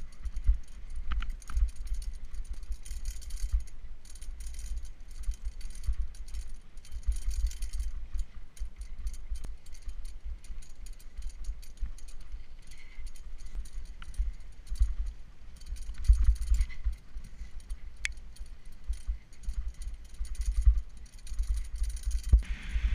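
Mountain bike rattling and jingling as it is pulled by two dogs over a rutted dirt trail, with a heavy low rumble from bumps and wind on the microphone.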